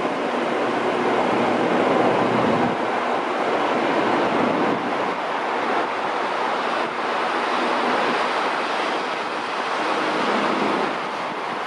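SRT Red Line electric commuter train running along the elevated track, a steady rush of wheel and running noise that eases slightly near the end.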